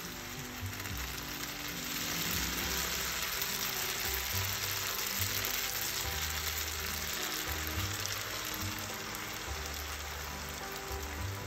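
Squid ink spaghetti sizzling in a hot frying pan as it is stirred and starchy pasta water is added; the sizzle swells about two seconds in. Soft background music plays underneath.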